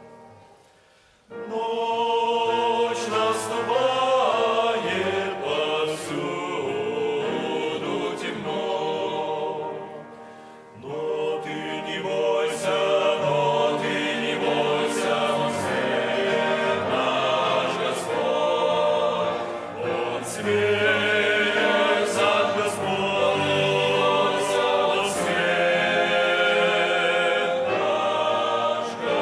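Church choir singing a Russian hymn in parts. The singing breaks off briefly between phrases, once right at the start and again around ten seconds in.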